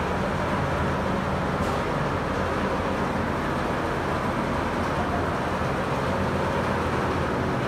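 Steady background hum and rumble, even throughout, with a faint low drone running under it.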